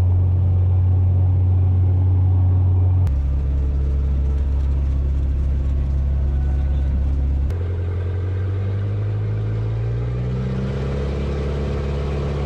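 Light-aircraft piston engines running at low power, heard from inside the cockpits in three cut-together shots: a steady low engine note, then a Cessna 185 Skywagon's engine from about three seconds in, then an Auster's engine from about seven and a half seconds, its pitch rising slightly near the end.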